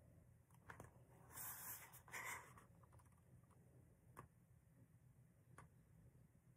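Faint handling of a paper picture book: two short paper rustles or scrapes close together about a second and a half to two and a half seconds in, with a few soft ticks scattered around them.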